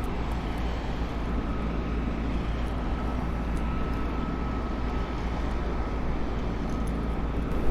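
Steady low rumble and hiss of outdoor background noise, with a faint thin hum in the middle stretch.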